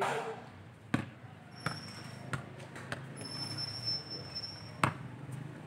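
A football being kicked: five sharp thuds spread over a few seconds, the one near the end loudest. A faint steady high tone sounds for about a second and a half in the middle.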